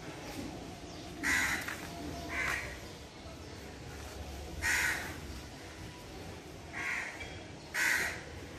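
A crow cawing: five short harsh caws, spaced irregularly, over a faint steady low rumble.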